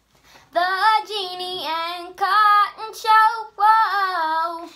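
Girl singing a short show intro in four phrases of long held notes.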